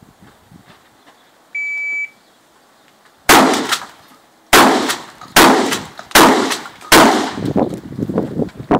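Shot-timer start beep, then five shotgun shots over about three and a half seconds, the gaps getting shorter, each with a short echo. Footsteps follow near the end.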